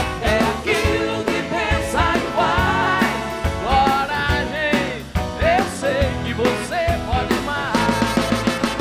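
Live rock band with drums, electric guitars, bass and a horn section playing a passage between sung lines, with wavering melody lines over a steady beat. The trumpet plays near the end.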